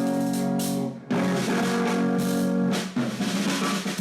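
Instrumental band music with guitar and drum kit: held guitar chords start abruptly, break off briefly about a second in, then carry on over the drums. This is the intro of a song whose vocals come in a few seconds later.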